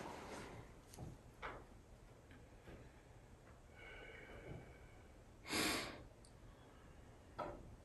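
Hushed small room with faint scattered clicks and creaks. About five and a half seconds in there is a short, sharp sniff through the nose, and a smaller one near the end.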